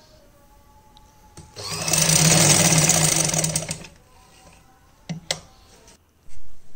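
Electric motor-driven domestic sewing machine running for about two seconds, stitching a short straight line through the fabric, then stopping. A click and a short knock follow near the end.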